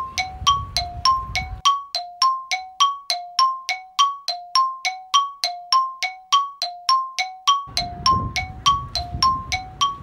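A metallic chime struck over and over, alternating between a higher and a lower ringing note at about three to four strikes a second.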